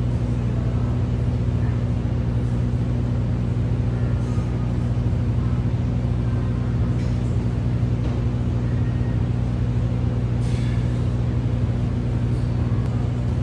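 Steady low droning hum, unchanging in pitch and level, with a few faint brief swishes over it.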